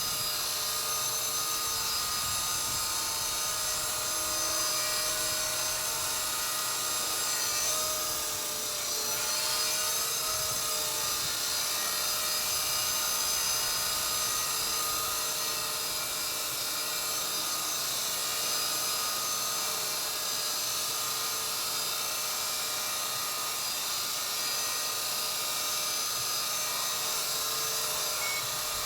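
Walkera V120D02S electric RC micro helicopter hovering: a steady high motor and rotor whine, its pitch wavering slightly about eight to ten seconds in.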